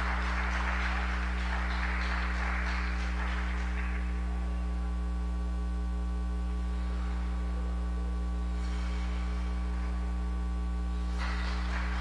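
A steady low hum throughout, with a rushing hiss over the first few seconds and again near the end, and faint music underneath.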